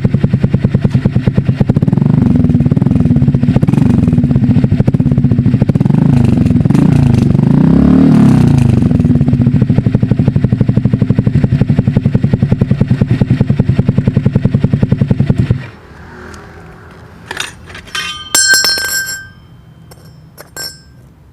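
Honda Click scooter's single-cylinder engine running through an SC Project exhaust fitted with a silencer insert. It sits at a pulsing idle with a few throttle blips between about two and eight seconds in, then is switched off about three-quarters of the way through. A few sharp clicks and clatters with a brief ringing follow.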